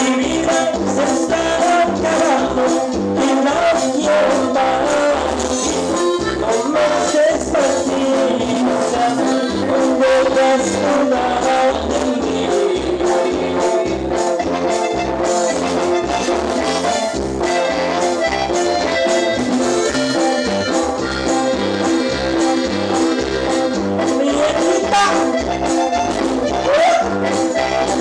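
Latin American dance music with brass instruments carrying the melody over a steady beat in the bass, playing without a break.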